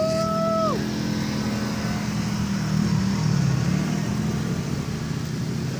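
Engines of several side-by-side UTVs running as they drive past through a mud hole, swelling slightly about halfway through. A short held tone sounds at the very start.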